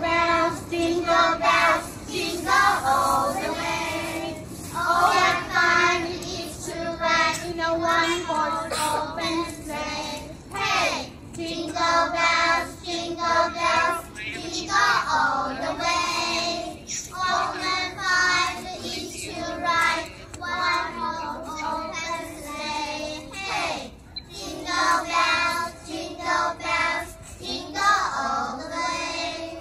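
A group of young children singing a song together in unison, phrase after phrase with short breaks between them.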